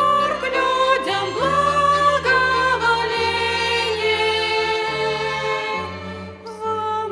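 Female vocals singing a slow Christmas song with violin ensemble accompaniment. The upper voice sings long held notes with vibrato over a steady low accompaniment, easing off near the end.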